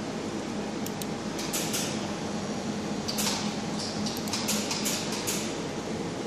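Laser marking machine running with a steady fan hum. A scatter of light clicks and taps comes over it, a few about a second in, more around three seconds in, and a quick run of them past the four-second mark.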